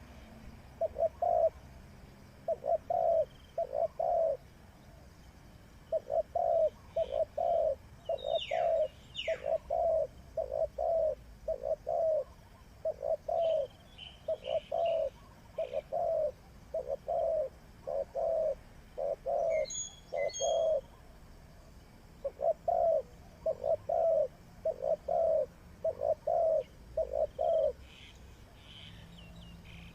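Spotted dove cooing: runs of short, low coos, about two a second, with brief pauses between runs. Other small birds chirp faintly higher up, one giving a falling whistle about eight seconds in.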